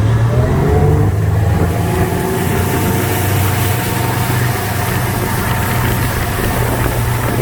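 Motorboat engine running steadily, its pitch rising slightly in the first second, then holding.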